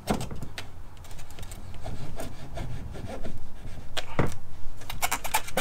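A roller-ski wheel bracket and its bolt being worked into place on a plastic snowmobile ski: irregular scraping and rubbing with short clicks, and a quick run of sharper clicks near the end.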